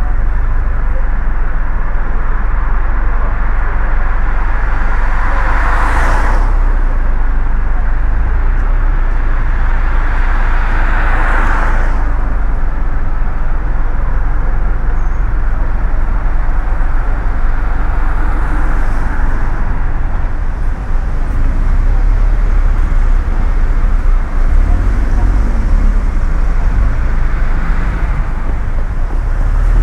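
Road traffic on a wet street: a steady low rumble with tyre hiss, and vehicles swishing past about six and eleven seconds in.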